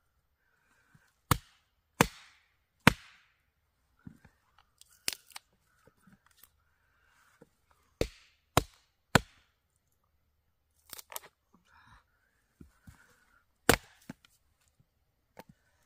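Wood being chopped for a campfire: sharp, hard strikes in irregular groups, three in quick succession, a pause with lighter knocks, then three more, and a last strike near the end.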